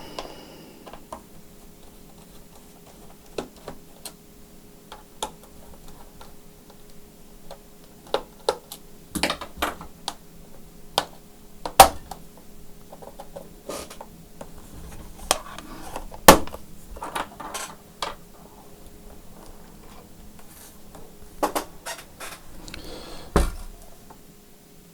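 Irregular clicks, knocks and short scrapes of hard plastic and metal parts being handled on a repair bench, with two sharp knocks about twelve and sixteen seconds in, over a faint steady hum.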